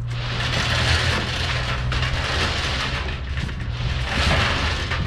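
Cardboard box being handled and pulled apart, the stiff cardboard scraping and rustling in several long waves over a steady low hum.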